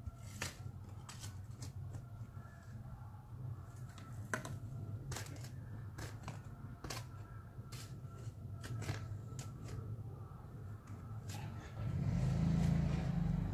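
A short-handled shovel scraping and clinking as soil and stones are dug out of a hole around a buried water pipe, in irregular strokes over a steady low hum. A louder low rumble sets in near the end.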